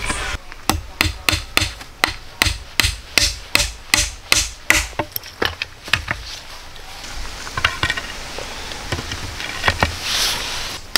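A tool striking wood in a steady series of sharp knocks, about two to three a second, for around five seconds. This is followed by a few seconds of softer scraping noise with scattered taps.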